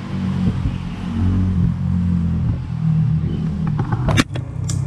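A motor vehicle's engine running close by in street traffic, a steady low rumble. Near the end, a few sharp clicks and a knock as the camera and its tripod are handled.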